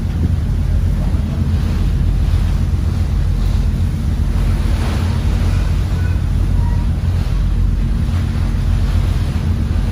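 Steady wind rumbling on the microphone over the rush of sea water from aboard a boat out at sea.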